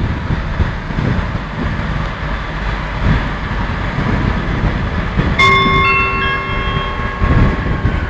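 Class 143 Pacer diesel railbus rumbling as it moves off, with its engine and wheels running steadily under the floor. About five seconds in, a station PA chime of several ringing notes, one after another, sounds over the rumble and rings on for a few seconds, ahead of a platform announcement.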